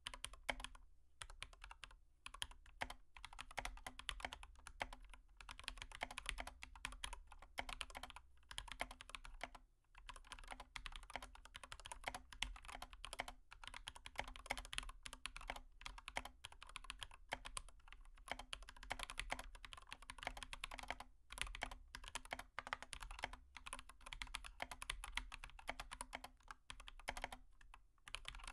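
Faint, rapid, irregular tapping and clicking of a stylus on a touchscreen, coming in quick runs with short breaks, over a low steady hum.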